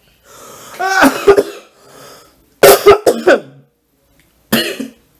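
A man's coughing fit: harsh coughs in three bouts, the middle one a quick run of several sharp coughs.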